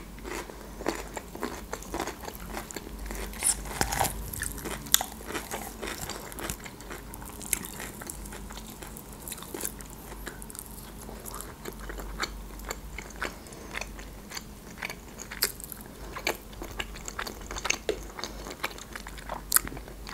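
Close-miked eating of grilled chicken: biting, crunching and chewing of its crispy skin and meat, with many irregular sharp crackles and smacks.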